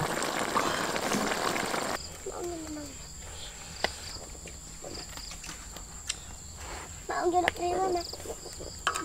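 A pot of soup boiling with a bubbling hiss, which stops abruptly about two seconds in. Then comes a steady, high-pitched drone of crickets and other insects.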